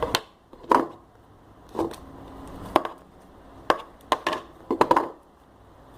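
Irregular sharp clicks and taps, about nine in six seconds, several bunched together near the end, as sticky homemade glue slime is worked and mixed in a container.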